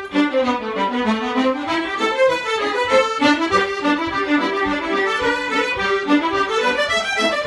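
Two fiddles and a piano accordion playing a traditional Scottish reel together, a quick steady run of notes with the melody dipping and climbing.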